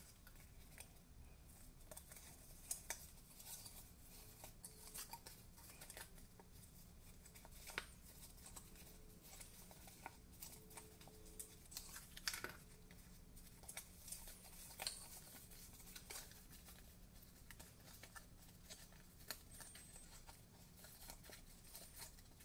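Faint crackles and taps of cardstock being creased and folded by hand along its score lines, against a near-silent room.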